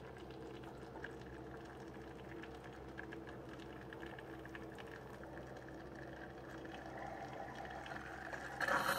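Mr. Coffee Pod + 10-Cup combo brewer running a water-only cleansing brew: a low steady pump hum with water running through into the thermal carafe. It grows louder near the end as the brew cycle finishes.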